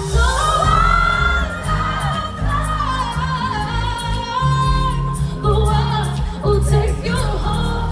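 Female pop singer singing live over a band, gliding through runs and holding long notes above bass and cymbals.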